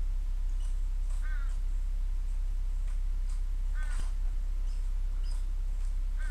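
A squirrel calling with short, harsh barks a couple of seconds apart, three in all, with faint high chips between them.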